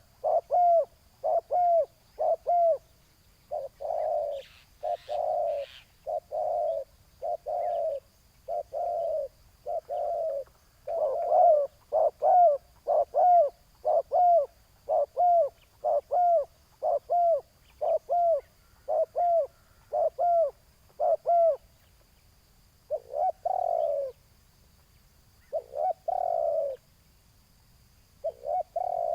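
Spotted doves cooing: a steady run of short, low coo notes, about one every three-quarters of a second, thinning to a few spaced coos near the end.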